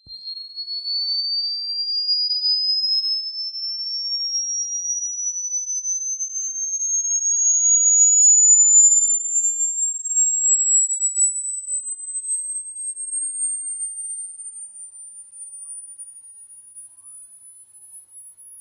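Electronically generated rodent-repellent tone: a single pure sine tone that starts suddenly and glides slowly and steadily upward from a high whistle to a very high, piercing pitch. It is loudest around the middle and grows fainter as it climbs toward the top.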